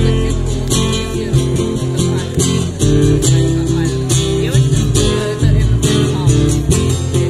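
Live music: an acoustic guitar strummed through a PA over a deep, steady low accompaniment. It is an instrumental passage with no words.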